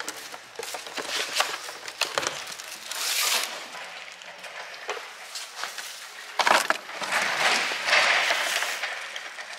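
Cardboard boxes and packaged external hard drives being handled, giving an irregular clatter of clicks and knocks with crackling, rustling stretches; the loudest come about three seconds in and again from six and a half to eight and a half seconds.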